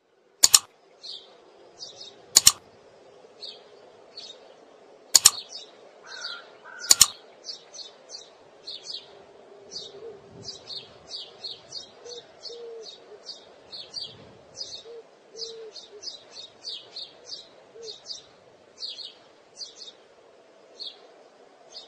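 Birds chirping: short high calls repeating about two or three times a second, over a faint steady hum. Four sharp clicks ring out in the first seven seconds.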